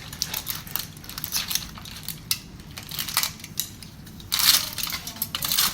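Baked whole chicken being cut apart: its crisp skin crackles and crunches in irregular short clicks, with a louder crunch about four and a half seconds in.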